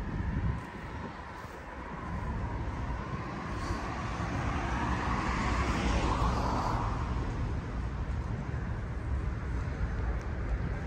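Road traffic running steadily, with one vehicle passing close: its tyre and engine noise swells up and fades away in the middle.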